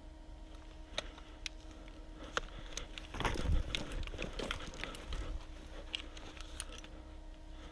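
Scattered sharp clicks and snaps, with a louder burst of rustling and crackling about three seconds in that lasts a second or so.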